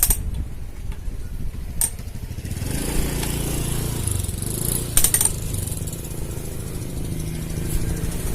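A small engine running with a rapid low chugging, a second engine-like layer coming in about two and a half seconds in, and a few sharp metallic clicks.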